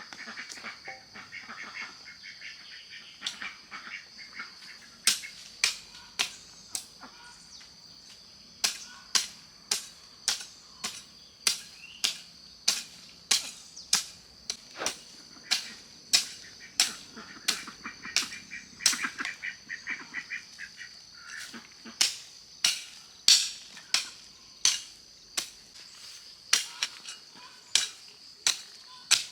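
A long run of sharp knocks or chops, about one to two a second and slightly uneven, faint at first and stronger from about five seconds in, over the steady high buzzing of insects.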